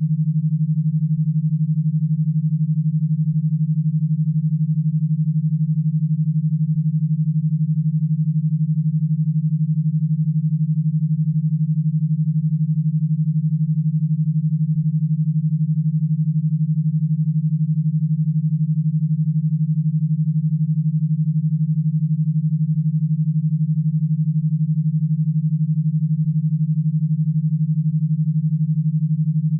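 Electro-stimulation (e-stim) audio signal: a steady, low synthetic tone pulsed about twelve times a second, made to drive electrodes through an e-stim unit rather than for listening.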